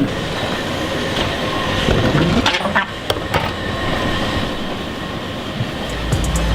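Steady rumbling noise of a moving vehicle, with a few sharp knocks about two and a half to three and a half seconds in. Music with a deep bass comes in near the end.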